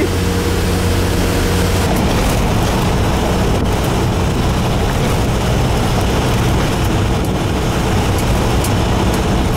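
Inside a moving vehicle with the window down: engine and road noise with wind rushing past the open window. A steady engine hum is clear for the first couple of seconds, then gives way to a denser road and wind rumble.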